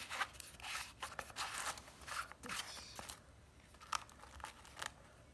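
Thin plastic dog waste bags crinkling and rustling in irregular bursts as they are handled, with a few small sharp plastic clicks from the dispenser.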